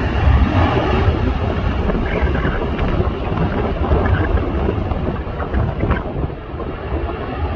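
Wind buffeting the phone's microphone, a gusty low rumble over a steady rushing noise.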